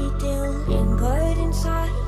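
Background music: a pop song with a steady low bass and a sung melody line, a new phrase starting under a second in.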